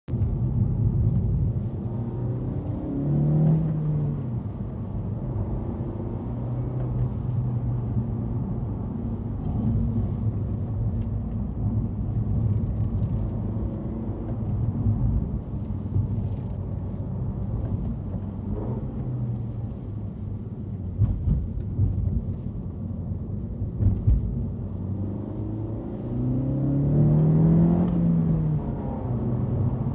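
Honda Civic hatchback FK7's ECU-tuned 1.5-litre L15C turbocharged four-cylinder being driven with a manual gearbox, climbing in pitch as it accelerates and dropping back at each shift. The biggest rises come a few seconds in and again near the end.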